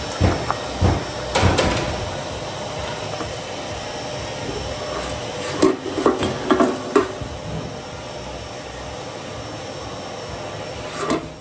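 A cast-iron pillow-block bearing housing and bearing boxes being handled and set down on a stainless steel machine frame: a few sharp metallic knocks and clunks in the first second and a half, another cluster about six seconds in, and one more near the end.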